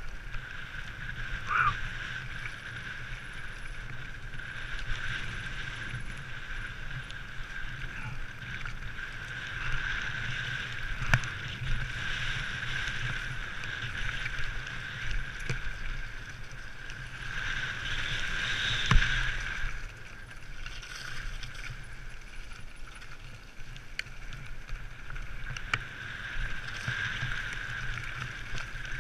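Mountain bike descending a rough gravel and dirt trail, heard from a helmet-mounted camera: rumble and wind on the microphone under a steady high hum, with scattered knocks and rattles from bumps. The loudest knock comes about two thirds of the way in.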